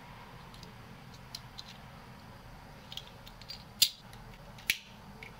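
Light ticks and clicks of small metal turbocharger parts being handled and fitted by hand, with two sharp clicks about four and five seconds in.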